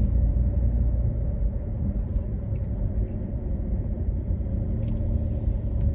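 Steady low rumble of a running car, with a faint steady hum above it.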